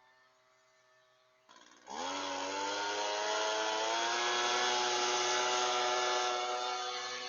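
Small gasoline lawn-equipment engine starting up about one and a half seconds in, its pitch rising as it revs up, then running steadily at high speed.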